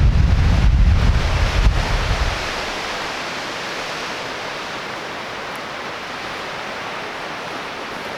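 Strong wind buffeting the microphone with a heavy rumble, which drops away a little over two seconds in to a steady rushing hiss.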